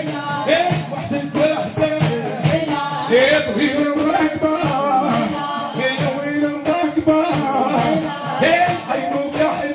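Live music: a man singing a wavering melody into a microphone, with the beat of large hand-played frame drums.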